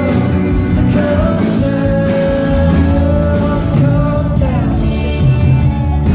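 Live rock band with a male lead vocal singing, holding long notes over full band backing.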